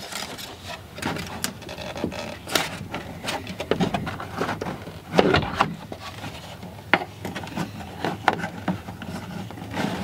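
Irregular clicks, light knocks and rustling of hands fitting a plastic multi-panel rear-view mirror to a golf cart's roof edge and securing it with zip ties.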